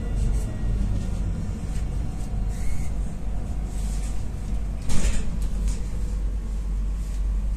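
Alstom Citadis 302 tram heard from inside, running with a steady low rumble as its electric traction whine falls away in the first second while it slows. A brief high tone sounds a little under three seconds in, and a single sharp clunk about five seconds in is the loudest sound.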